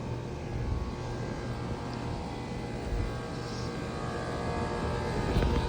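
Heat pump outdoor unit starting up: a steady compressor and fan hum that slowly grows louder. The startup is slow, which the owner thinks is a capacitor going bad.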